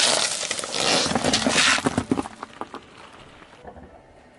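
Car tire rolling over a plastic dish of small hard-coated candies, crunching and cracking the dish and candies, with candies scattering and pattering on the asphalt. The crackling is loudest in the first two seconds, then thins to scattered clicks and dies down.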